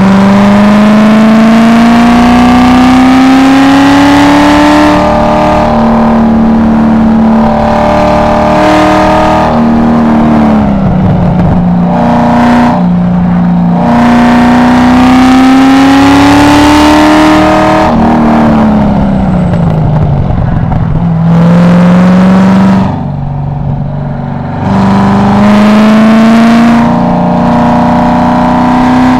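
Car engine heard from inside the car during a track lap. It rises steadily in pitch under acceleration along the straights and falls away sharply when the driver brakes for corners, twice, before building again near the end.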